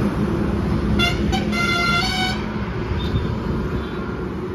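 Vehicle horn honking on a road: a few quick toots about a second in, then one held honk. Steady traffic rumble throughout.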